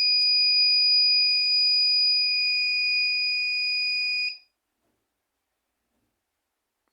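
Buzzer on a homemade fire-alarm circuit sounding one steady high-pitched tone, then cutting off sharply about four seconds in. It is the alarm going off because a sensor has been triggered.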